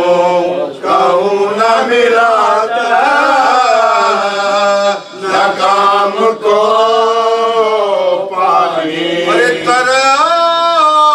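A man chanting a Shia mourning elegy (noha) in long, wavering held notes, with short breaks for breath between phrases.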